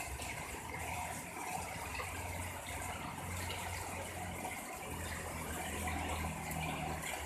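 Heavy rain pouring steadily, driven by strong wind, with a low rumble underneath that swells and fades.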